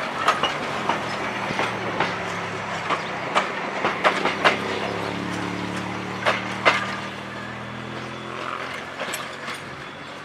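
Railway carriages rolling past behind a steam locomotive, their wheels clicking over rail joints in an irregular clickety-clack, with a low hum midway through. The sound fades near the end as the train draws away.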